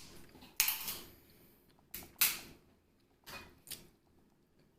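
Close-up eating sounds from boiled seafood: five short, sharp noises spread over about four seconds, with quiet between them.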